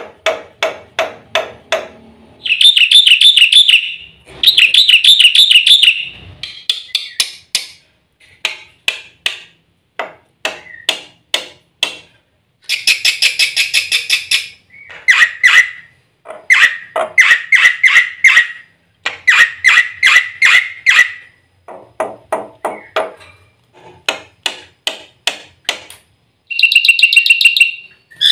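Black-winged myna (jalak putih) singing a varied song. Trains of rapid, sharp ticking notes alternate with loud, dense trilled phrases of a second or two, with short pauses between the bursts.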